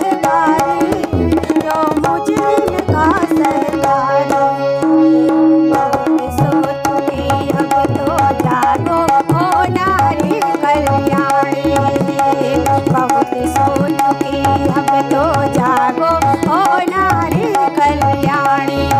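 Indian folk song: a woman singing over held harmonium chords, with a tabla playing a steady rhythm throughout.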